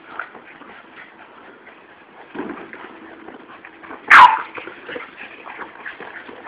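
A Boston terrier barks once, a single loud sharp bark with a quickly falling pitch about four seconds in, while the dogs play ball.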